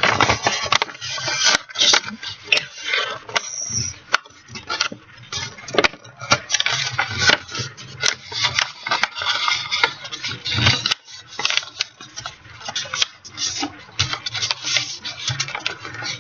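A sheet of origami paper being handled close up: folded and creased, with irregular crinkles, rustles and sharp little clicks as the folds are pressed down.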